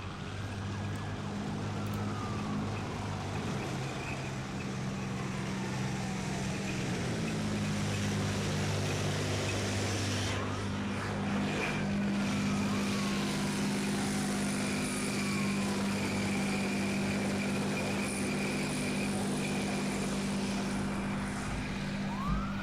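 Police sirens wailing again and again over a steady, low engine drone, with road noise. The drone drops slightly in pitch about seven seconds in.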